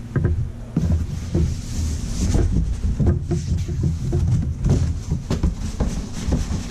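A large cardboard shipping box being handled: its flaps folded shut, then the box slid and lifted off a wooden table, with repeated scrapes and knocks throughout.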